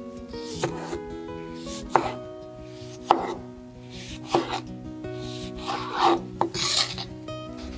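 Kitchen knife slicing a tomato into wedges on a bamboo cutting board: a soft swish through the flesh and a sharp knock of the blade on the board with each cut, about six cuts. Light background music underneath.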